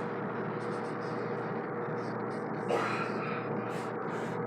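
A single short vocal sound from a person about two-thirds of the way in, over a steady background hum.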